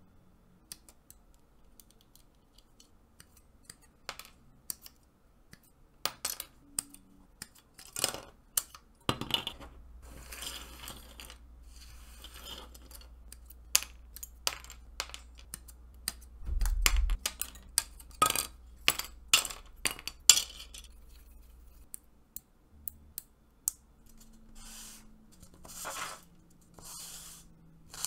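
Small hard plastic model kit parts clicking and tapping as they are handled and fitted together, with a few short stretches of rubbing or scraping in between.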